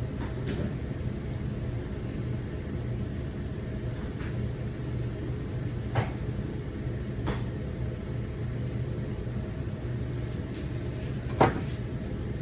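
Steady low machine hum running throughout, with a few short sharp knocks, the loudest near the end.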